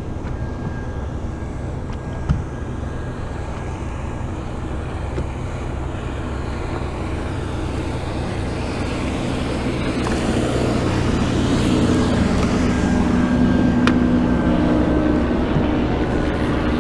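A passing motorboat's engine drones steadily over wind and water noise, growing louder from about ten seconds in as it comes closer. There is a single knock about two seconds in.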